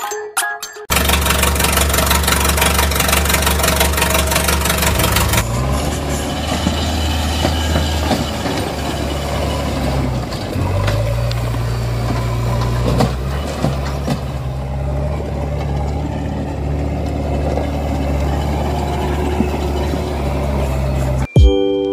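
Engine-like running sound for a toy excavator: a steady low diesel-style hum that cuts in about a second in, its pitch stepping up around five seconds in and again around eleven.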